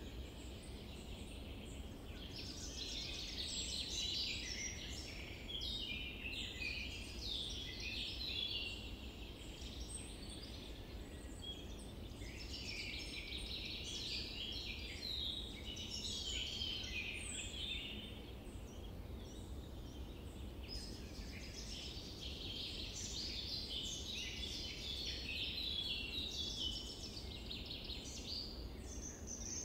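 Dense chorus of many small birds chirping and twittering, overlapping continuously, over a steady low background noise.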